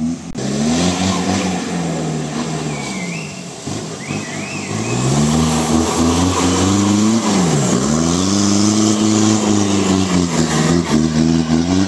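Mahindra Thar off-road 4x4 engine revving hard, its pitch climbing and falling in long sweeps, with two sharp drops in pitch in the second half.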